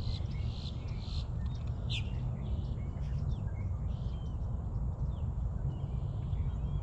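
Small birds chirping and calling again and again, with a sharper falling call about two seconds in, over a steady low rumble.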